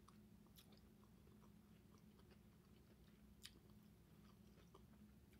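Very faint close-mouthed chewing of asparagus, with a few small sharp mouth clicks over a steady low hum.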